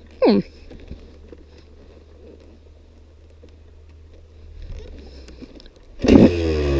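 Stalled KTM SX 125 two-stroke single restarting: after a brief falling sweep and a few seconds of faint low hum, the engine fires about six seconds in and revs up, its pitch climbing.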